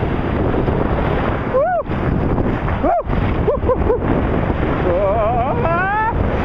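Rough surf breaking and churning around the camera, with wind buffeting the microphone. A few short voice cries rise above the surf, the longest and wavering near the end.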